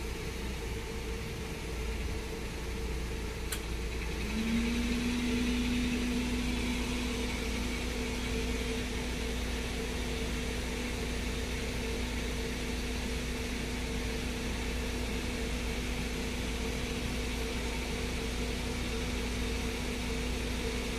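A steady mechanical hum: a low drone with a constant tone above it, joined about four and a half seconds in by a second, lower steady tone as it gets slightly louder.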